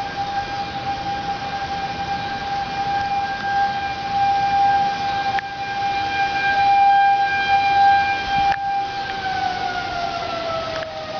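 Outdoor civil-defense tornado warning siren sounding a steady single-pitched wail, swelling louder and softer. About nine seconds in, its pitch starts to fall as it winds down.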